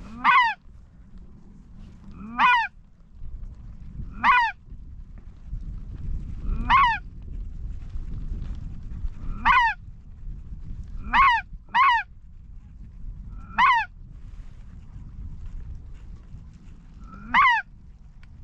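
Goose honks: nine loud single calls a second or two apart, two of them close together near the middle, each a short falling note. Wind rumbles on the microphone underneath.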